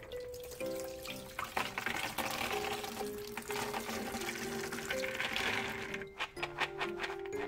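Water pouring from a bowl into a plastic colander and splashing. Near the end, soaked soybeans tumble in with a rapid patter of clicks. Background music plays throughout.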